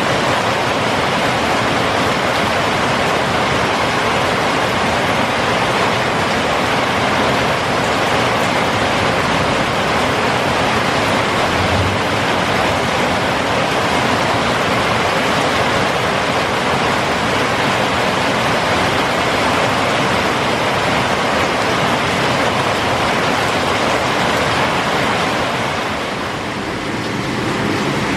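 Heavy rain pouring down steadily as a dense, even hiss, dipping slightly in loudness near the end.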